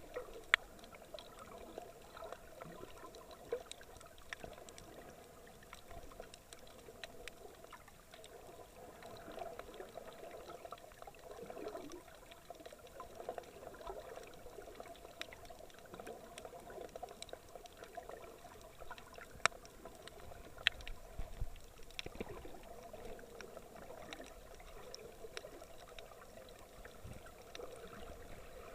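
Sea water sloshing and trickling around an action camera, muffled, with scattered sharp clicks throughout.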